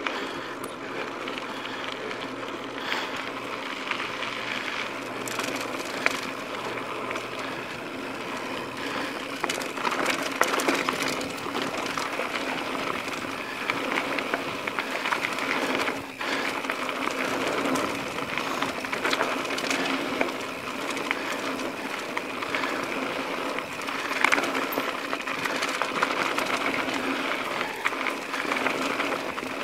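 Mountain bike running over a dirt and gravel trail: a steady rattle and tyre noise, broken by frequent small knocks from bumps and a few louder ones.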